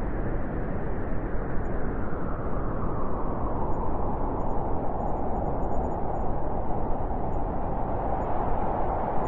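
Howling blizzard wind blowing steadily, with a hollow howl that grows stronger over the second half.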